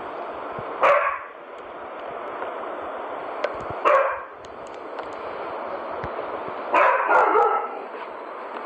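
Rhodesian Ridgeback barking: a single loud bark about a second in, another about four seconds in, then two or three quicker barks near the end, over steady background noise.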